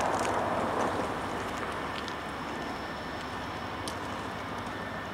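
Distant diesel locomotive approaching, a low steady rumble under an even outdoor hiss, with a brief swell of hiss in the first second.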